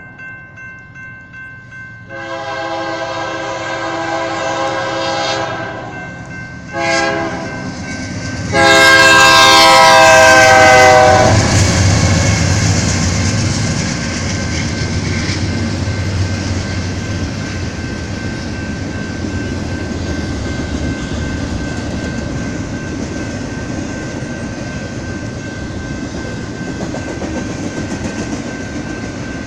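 BNSF diesel freight locomotives sounding their multi-chime air horn in a long blast, a short blast and then a very loud long blast that dips slightly in pitch as they pass. After that, the locomotives' deep engine rumble and the steady rolling clatter of double-stack container cars going by.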